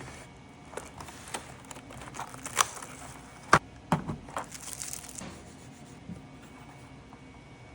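A mechanical keyboard being handled: scattered, uneven clicks and knocks, with a few sharp hard ones a little past the middle, settling to quiet near the end.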